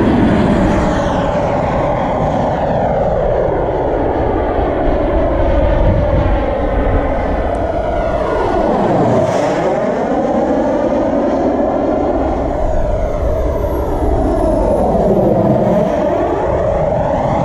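KingTech K80G2 model jet turbine in an MB-339 model jet, running steadily in flight as the jet makes low passes. The roar sweeps with a phasing whoosh as the jet goes by, once near the middle and again near the end.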